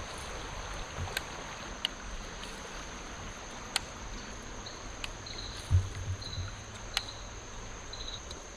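Steady high-pitched drone of summer insects, with a run of short chirps in the second half, over a soft water-like hiss. Two sharp clicks and a few low knocks come from handling gear on the kayak.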